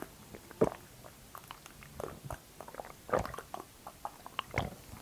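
Close-miked gulps of a drink from a glass: four swallows a little over a second apart, with small wet mouth clicks between them.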